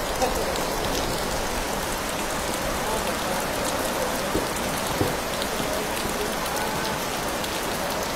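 Steady rain falling, an even hiss with scattered drop taps.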